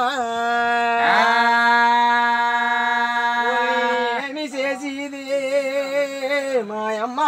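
A man singing unaccompanied in the drawn-out raagam style of a Telugu devotional folk song: he holds one long steady note for about three seconds, then breaks into wavering melodic turns.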